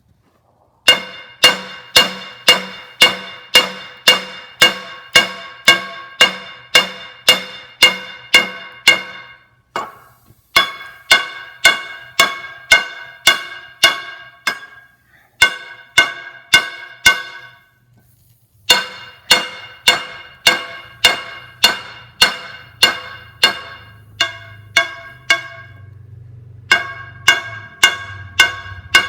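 Hand hammer beating the heated steel cable tool drill bit on an anvil: steady blows about two a second, each with a bright ring, in four runs broken by short pauses as the bit's edge is squared up.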